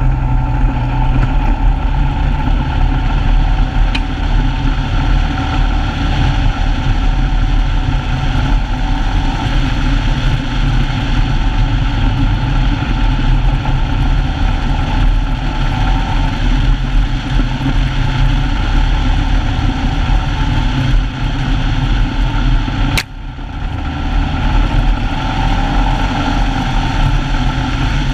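Polaris RZR side-by-side's engine running steadily as it drives along a dirt track, heard from on board. A sharp click comes near the end, followed by a brief dip in the sound.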